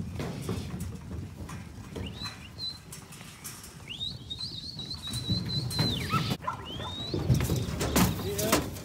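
A crowded mob of sheep shuffling and trampling in steel yards, with knocks and clatter growing louder near the end. A high, steady whistle sounds for about two seconds midway, with a shorter whistled note before it and a rising one after.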